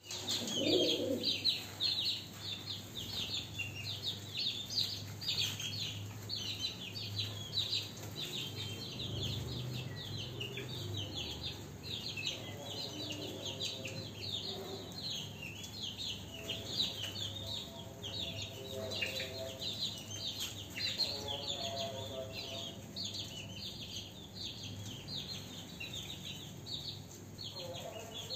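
Many small birds chirping continuously, a dense chatter of quick, high chirps.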